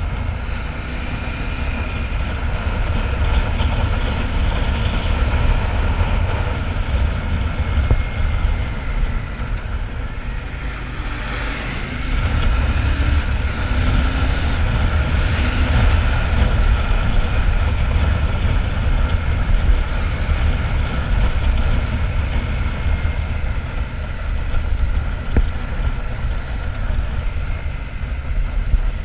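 Royal Enfield Shotgun 650's parallel-twin engine running steadily while the motorcycle is ridden, growing somewhat louder about twelve seconds in.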